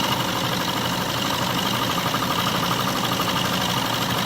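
Atlas metal lathe running steadily, spinning an end mill that takes a light cut across hard weld on the bottom of a steel vise clamp, with a fine rapid chatter in the running sound. The machine is running with much less vibration than the dog plate normally causes.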